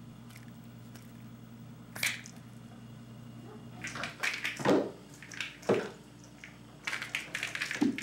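A cat jumping and landing on a hard tiled floor while batting at a bungee bird toy: a single knock about two seconds in, then scattered thumps and scuffling from about four seconds on, the loudest two thumps around the middle, and a quick run of light taps and scrabbles near the end.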